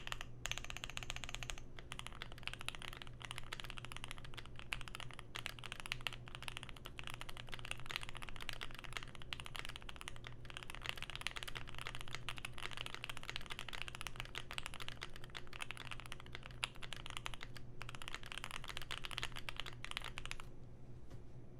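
Fast, continuous typing on a Keychron Q1 aluminium mechanical keyboard with lubed and filmed Pinoko switches, GMK keycaps, a tape mod and Poly-Fil packed in the case. The keystrokes stop about a second before the end.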